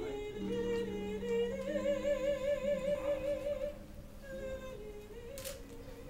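Slow ceremonial music: a melody sung with strong vibrato over sustained lower accompanying notes, growing softer about two-thirds of the way through. A short click comes near the end.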